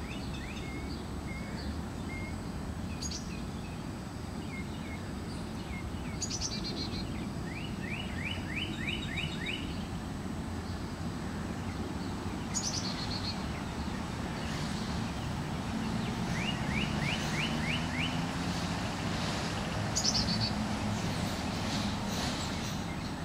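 Birds singing: two runs of about seven quick rising notes and short high chirps every few seconds, over a steady low rumble of outdoor background noise.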